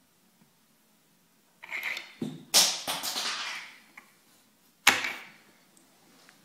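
A rustle, a knock and a loud crash that dies away over about a second, then another sharp knock about five seconds in.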